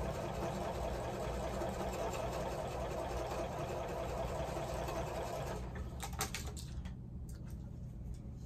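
Electric sewing machine stitching steadily, stopping about five and a half seconds in, followed by a few sharp clicks.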